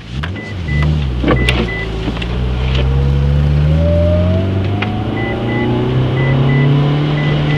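A 2004 Mitsubishi Evo VIII's turbocharged four-cylinder engine running under load, with a whine that rises steadily over several seconds as the car accelerates. Scattered sharp clicks and knocks sound over the engine.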